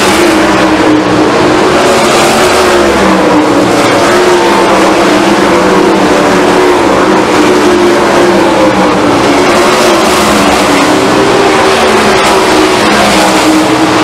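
A field of 410 sprint cars racing: several 410-cubic-inch V8 engines running hard at once in a loud, continuous din, the pitch rising and falling as the cars power down the straights and lift into the turns.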